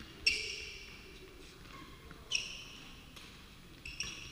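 Badminton racket strings striking the shuttlecock during a rally in a large hall, three or four times. Each hit is a sharp crack with a brief high ring, and the hall echoes after it.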